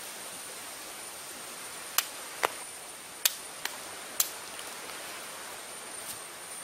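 Five short, sharp knocks and cracks of wooden sticks being handled, between about two and four and a half seconds in. Behind them a steady outdoor hiss and a thin, high, steady whine.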